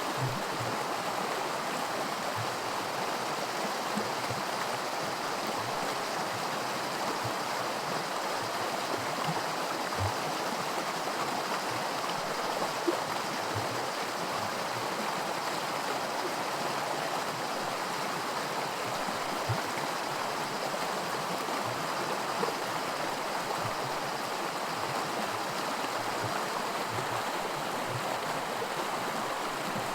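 A small creek rushing and babbling over rocks in a stretch of miniature white water, a steady splashing with small scattered gurgles.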